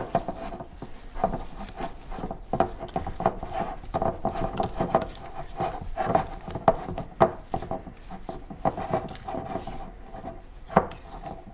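A silicone spatula scrapes and pushes thick, sticky cheese dough around a glass mixing bowl in repeated, irregular strokes, with the odd knock of the spatula or bowl against the glass.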